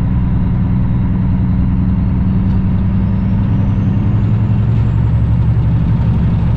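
Cummins ISX diesel of a 2008 Kenworth W900L semi pulling steadily at highway speed, heard from inside the cab as a constant low drone over road noise. A faint high whine rises in pitch about two seconds in.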